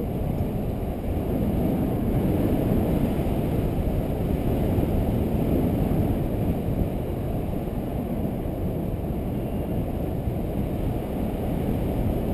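Steady low wind noise buffeting the camera microphone, from the airflow of a paraglider in flight.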